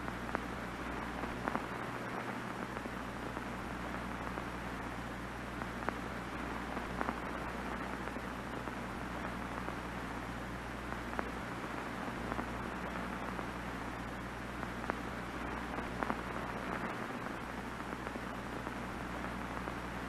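Steady hiss of off-air television static, with scattered small crackles and a low steady hum underneath.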